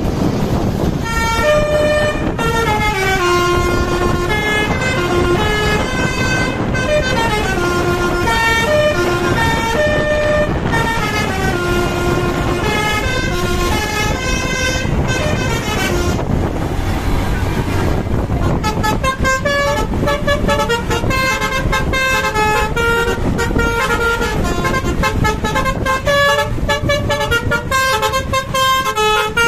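Bus 'basuri' telolet horn playing tunes: a string of held horn notes stepping up and down in pitch, over a steady low rumble. Past the middle the notes change faster, with many short clicks among them.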